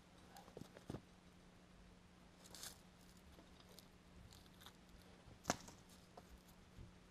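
Near silence over a faint steady hum, broken by a few soft knocks and scrapes of sawn lumber being shifted by hand on a bandsaw mill's bed. One sharper knock comes about five and a half seconds in.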